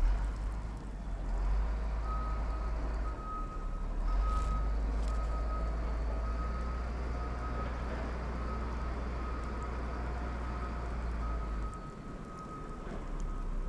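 A vehicle's reversing alarm beeping in a steady, even series of single-pitch beeps over a low engine rumble.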